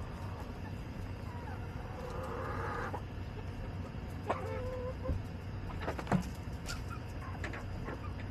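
Backyard hens clucking with short, drawn-out calls, over a steady low background rumble, with a few sharp taps, the loudest about six seconds in.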